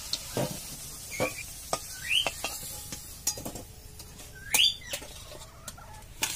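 Metal spatula clinking and scraping against a metal wok and a steel plate as fried potatoes are lifted out of the oil. Several short rising bird chirps come through as well, the loudest about four and a half seconds in.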